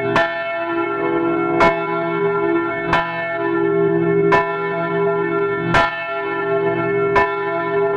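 Church bell ringing, struck six times at an even pace of about one stroke every second and a half, each stroke ringing on into the next.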